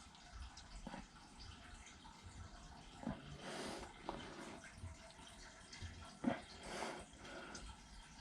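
Faint trickle and drip of water from a water storage tank being drained down, with a few light knocks scattered through.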